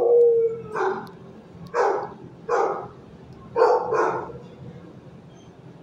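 A dog barking repeatedly, about six barks in an uneven run over four seconds, then stopping.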